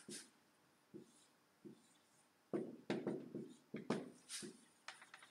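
Whiteboard marker drawing a circuit diagram: short, separate strokes and taps on the board, a cluster of them about midway, with quiet gaps between.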